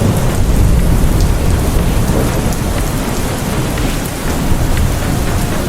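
Rain and thunder sound effect: steady heavy rain with a continuous low thunder rumble underneath.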